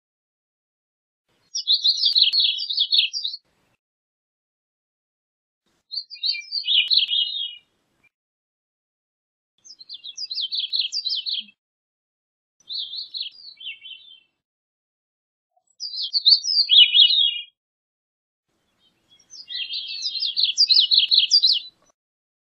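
Gray-cheeked thrush singing: six short, high phrases, each one and a half to two and a half seconds long, with short pauses between. A few of the phrases drop lower toward the end.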